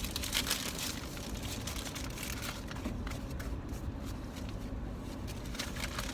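Steady low rumble inside a car cabin, with light rustling and a few small clicks, mostly near the start and the end.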